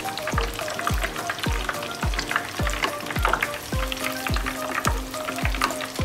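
A steamed chicken quarter deep-frying in hot oil, crackling and sizzling steadily as it is turned with metal tongs. Background music with a steady bass beat, about ten beats over the six seconds, plays underneath.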